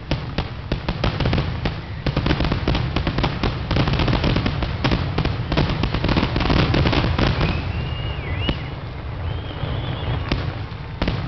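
Fireworks display: a rapid barrage of many overlapping bangs and crackles for the first seven seconds or so. It then thins out to a few single bangs, one just before the end.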